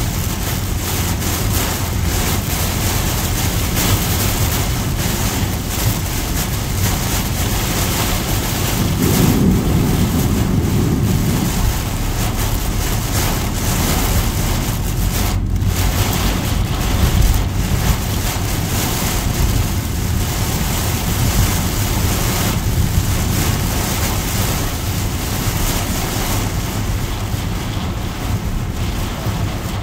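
Heavy rain pelting a moving car's roof and windscreen, heard from inside the cabin, over the steady rush of tyres on a waterlogged road. A deeper rush swells for a couple of seconds about nine seconds in.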